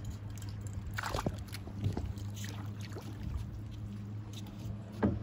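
Lake water sloshing against the dock under a steady low hum, with scattered small knocks and a louder splash-like knock about a second in as the crankbait goes into the water.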